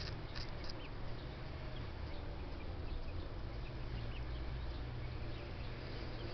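Faint, scattered short bird chirps and peeps over a steady low rumble.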